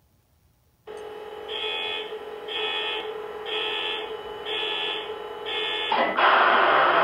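Onboard sound system of an O scale EMD SD70ACe model diesel locomotive running its start-up sequence: a steady hum comes on about a second in, then five buzzing alarm tones sound about one a second, and near the end a loud diesel engine sound starts up.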